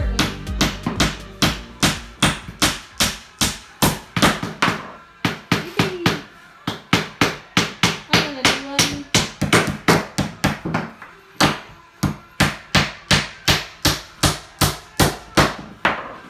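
Mallet tapping vinyl floor planks into place: quick, even strikes, about three a second, with a brief pause around the middle.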